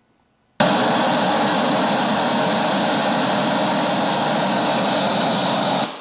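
Pink noise test signal played loud through a board of Hertz motorcycle speakers driven by a Hertz SP4.900 amplifier: an even, full-range hiss that starts abruptly about half a second in and cuts off just before the end. It peaks at 126.1 dB on the SPL meter.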